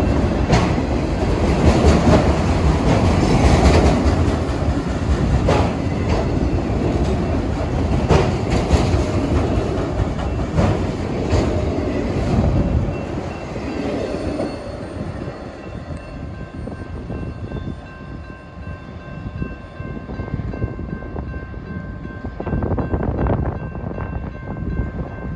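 Double-stack intermodal freight cars rolling past at close range: a heavy rumble with repeated wheel clicks over the rail joints. About 13 seconds in the rumble drops away to a fainter rattle as the last cars pass, with thin steady high tones ringing on.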